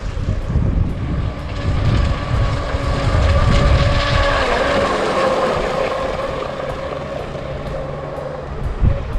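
The brushless motor of an RC catamaran speedboat, running on a 3S battery, gives a high-pitched whine as the boat runs across the water. It grows louder to a peak about four seconds in, then slowly fades. Low rumble from wind on the microphone runs beneath it in the first half.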